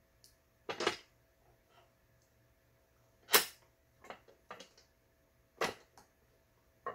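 Scattered sharp clicks and knocks as hands work on a Riccar BL3800 home sewing machine, about six in all, the loudest about three and a half seconds in, over a faint steady hum.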